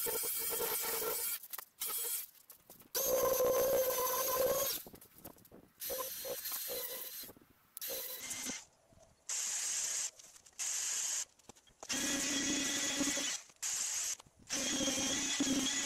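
A compact trim router with a roundover bit runs in short stretches with a steady high whine, rounding over the edge of an insulation-foam seat back. In the second half a cordless stick vacuum with a higher, hissing whine takes over, also in stretches that start and stop abruptly.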